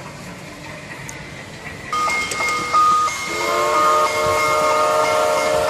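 Steam-train sound effect: hissing steam with short steady tones starts suddenly about two seconds in, and a moment later a steady multi-note train whistle sounds and holds.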